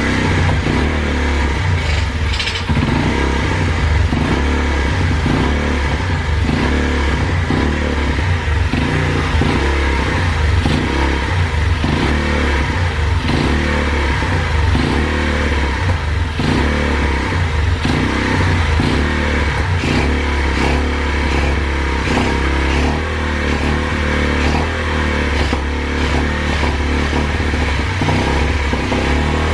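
Turbocharged Loncin single-cylinder four-stroke pit bike engine running steadily, with its turbo whistle drowned out by the silenced exhaust. The engine is drawing in false air through a leak, which the owner suspects.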